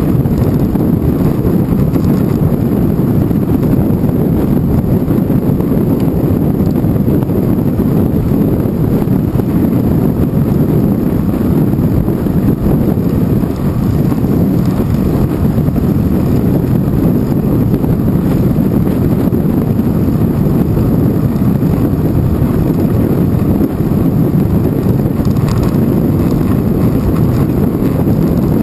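Wind buffeting the microphone of a handlebar-mounted GoPro Hero 2 on a moving bicycle ridden in a strong wind: a loud, steady low rumble.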